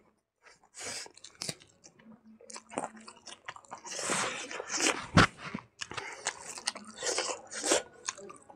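Close-up chewing of rice and cooked silkworm larvae eaten by hand, with wet mouth clicks and soft crunches in an uneven rhythm. One sharp, loud click comes about five seconds in.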